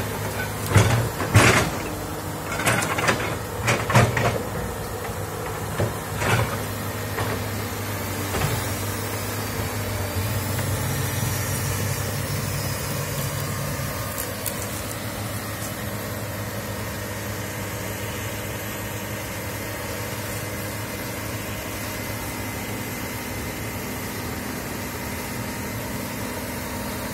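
Komatsu hydraulic excavator crawling on its steel tracks, its diesel engine running steadily. Several loud, sharp noises come from the tracks in the first six seconds. The engine note rises for a few seconds about ten seconds in.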